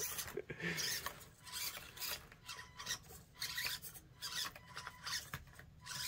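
Axial SCX24 Deadbolt micro RC crawler driving in a series of short stop-start bursts, its small electric motor and gears whirring while the tires scrape and rasp over the course.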